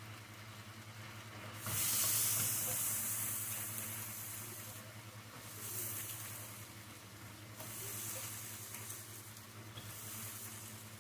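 Pad kra pao stir-fry sizzling in a hot pan. The sizzle surges up about two seconds in and swells again in waves about three more times, over a steady low hum.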